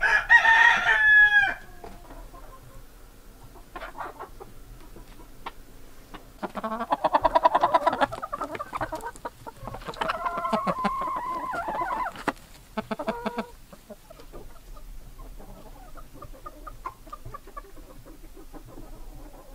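A flock of chickens, hens and a rooster, calling: a loud call right at the start, longer runs of squawking clucks about seven and eleven seconds in, and quieter scattered clucking between.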